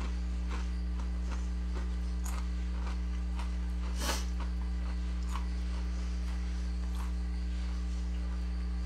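Spice-dusted tortilla chips crunching and crackling as they are picked through and eaten: short sharp crackles every half second or so, the loudest about four seconds in, over a steady low electrical hum.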